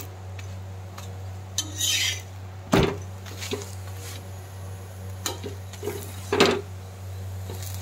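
A slotted metal spatula scraping and knocking against an iron tawa as a roti is turned on it. There is a scrape about two seconds in and a few sharp knocks after it, the loudest just before three seconds. A steady low hum runs underneath.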